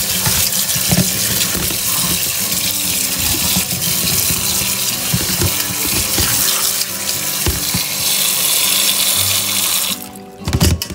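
Kitchen tap running into a stainless-steel colander of chopped coconut palm heart in a steel sink, with hands turning the pieces under the stream and soft knocks of them against the mesh. The flow is shut off near the end.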